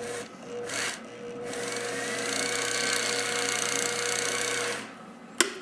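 Homemade tool post grinder, a flexible-shaft grinder handpiece with a small stone, grinding the face of an engine valve turning in the lathe chuck. A steady whine runs throughout; two brief touches of grinding come in the first second, then a long hissing grind from about a second and a half in until nearly five seconds. A sharp click near the end.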